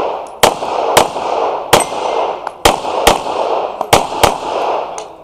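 Pistol fire during a timed action-pistol course of fire: seven sharp shots, mostly in quick pairs, each followed by a long echo that fills the gaps.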